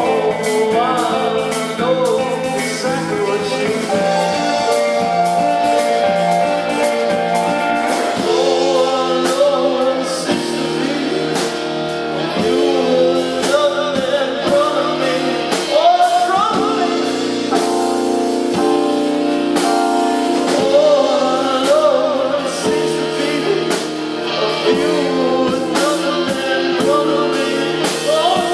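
A band playing live: a singer's voice over electric guitars, keyboard and drums.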